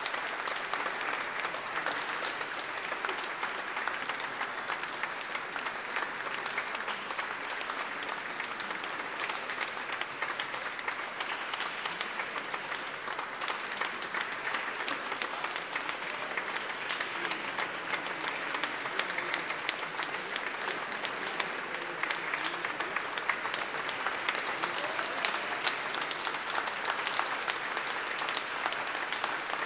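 Audience applauding steadily, a dense, sustained clapping from a large seated crowd at the close of a live choral performance.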